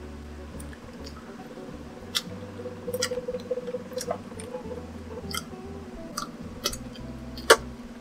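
Close-up chewing of fried chicken coated in peanut butter: irregular wet mouth clicks and small crunches, the loudest about three-quarters of the way through.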